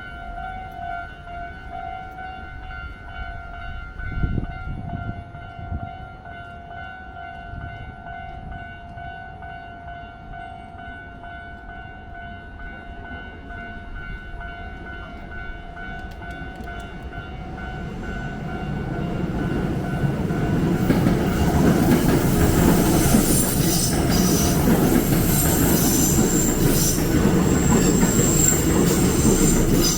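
Japanese level-crossing warning alarm ringing its steady repeating electronic clang, with a brief thump about four seconds in. From about eighteen seconds in, a Hankyu train approaches and crosses, and its rumbling wheel-on-rail noise grows loud and drowns out the alarm.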